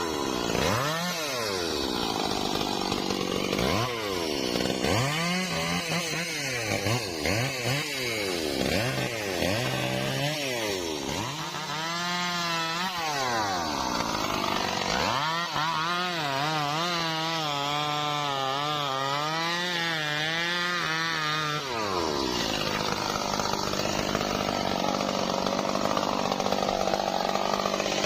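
Stihl MS 382 two-stroke chainsaw revved up and down in repeated surges, cutting trembesi wood. It is then held high for several seconds with its pitch wavering under load, and for the last few seconds it is a steady rough rasp with no clear pitch.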